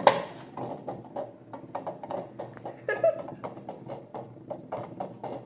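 Tiny Hexbug vibrating robot bug running on a table: a steady buzz with fast, irregular clicking and clattering as it skitters and bumps into things. A brief pitched sound comes about three seconds in.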